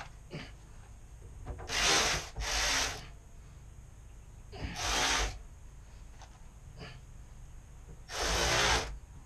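Four short rasping scrapes, each about half a second long, two close together near the start, one in the middle and one near the end, with a few light clicks in between.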